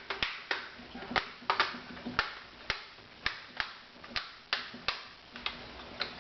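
Plastic laptop screen bezel being pressed back onto the lid, its clips snapping into place one after another in a string of sharp clicks, about two or three a second at an uneven pace.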